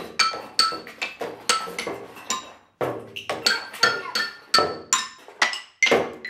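Children beating a toy drum and toy percussion with wooden sticks. The strikes come unevenly at about two a second, and each leaves a short, bright ringing tone.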